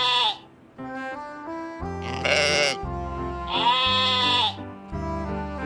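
Sheep bleating: one bleat trails off at the start, then two long bleats about two seconds in and near four seconds, over background music.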